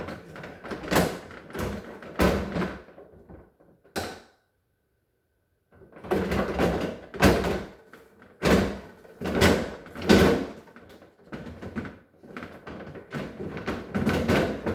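Repeated knocks and clunks of refrigerator parts being handled and fitted back into a fridge cabinet, with a dead gap of about a second and a half near the middle where the sound drops out completely.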